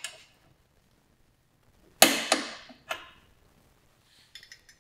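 Steel hand tools clinking against each other: three sharp metallic clinks with a short ring, starting about two seconds in, then a few faint light ticks near the end.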